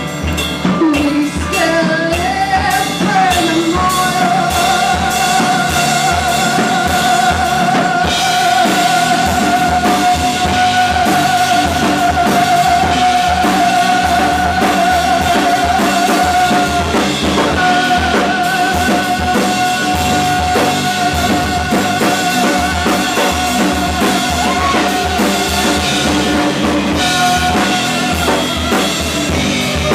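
Live rock band playing with a full drum kit, a long wavering note held over the drums that breaks off briefly just past the middle and then carries on.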